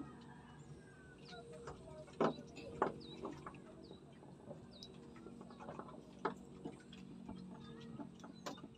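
Faint clucking of chickens, a few short calls with the loudest at about two and three seconds in, over scattered chirps of small birds.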